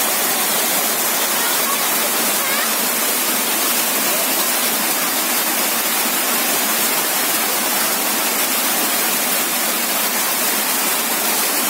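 Rushing river water flowing over rocks and debris: a steady, even hiss.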